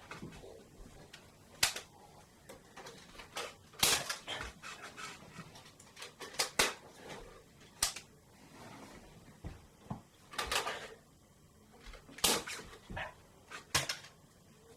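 Irregular sharp clicks and knocks, about a dozen spaced unevenly, from Nerf foam-dart blasters being worked and fired and darts striking in a small room.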